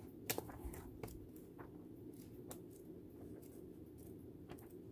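Paper pages of a booklet being turned by hand: faint rustling with a few soft ticks, the sharpest about a third of a second in, over a steady low hum.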